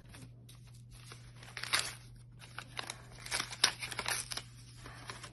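Paper envelope rustling and crinkling as it is opened by hand, in irregular bursts.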